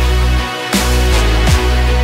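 Electronic background music with deep, sustained bass and drum hits that fall in pitch, about every three-quarters of a second.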